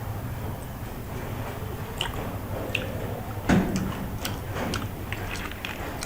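Close-miked eating of spicy seafood and snails: chewing with scattered wet clicks and smacks, and one louder knock about three and a half seconds in.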